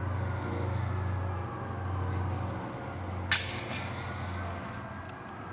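A disc golf disc striking the metal chains of a basket about three seconds in: a sudden bright metallic jingle that rings and fades over about a second and a half. A low steady hum lies underneath and fades out near the end.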